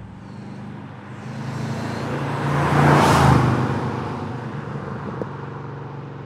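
Supercharged VF Holden Commodore SSV with a built iron-block 6.0-litre LY6 V8 driving past: its engine note grows louder to a peak about three seconds in, then fades as the car drives away.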